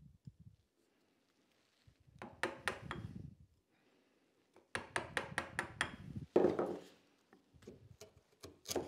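A chisel chopping into a maple board to flatten the ridge between two drilled holes. It makes several bunches of quick, sharp wooden knocks with short pauses between them.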